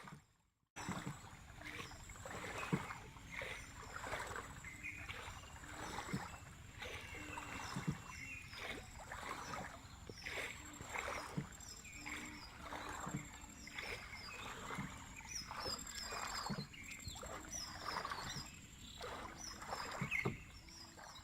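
Rowing boat's oar or steering rudder working the water in a slow, even rhythm: a watery stroke about every one and a half to two seconds, several with a short low knock. High chirping and a steady high whine run underneath.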